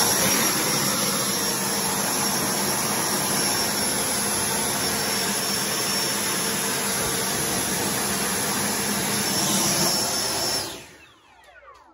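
90mm electric ducted fan of an RC jet running steadily at power, a rushing whoosh with a high whine over it. About ten and a half seconds in the throttle is cut and the fan spins down, its pitch falling away.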